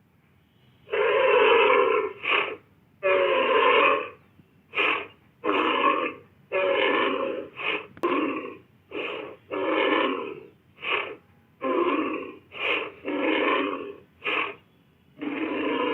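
A rapid series of about a dozen rough, breathy grunts and short bellows, presented as the calls of an aurochs, the extinct wild ox. The calls start about a second in and come in quick succession, some brief and some drawn out to about a second.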